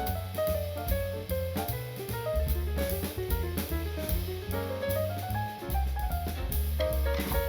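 Background jazz music with a walking bass line and drum kit.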